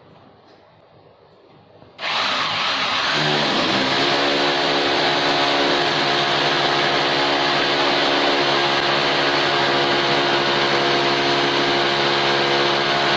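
Handheld electric power tool switched on about two seconds in, its motor spinning up to speed within about a second and then running steadily at an even pitch.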